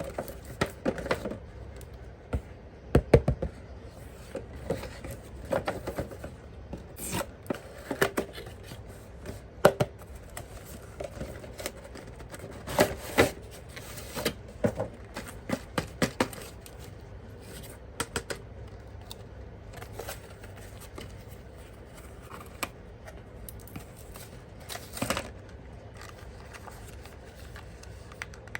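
Hands unpacking and handling things: irregular clicks, taps and scrapes, busiest in the first half.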